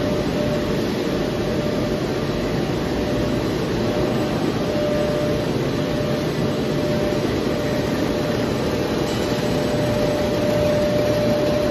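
Steady running noise of a lamination-film production line's rollers and drives, a constant hum with a steady mid-pitched whine over it.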